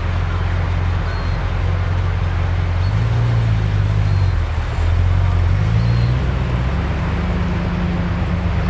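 Series 3 Land Rover engine running as the vehicle pulls away, its low note stepping up and down several times with the revs.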